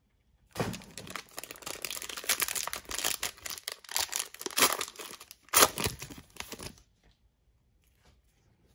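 Metallic foil wrapper of a trading-card pack crinkling and tearing as it is ripped open by hand, with the loudest rip a little past halfway. The crinkling stops about seven seconds in, leaving only faint card handling.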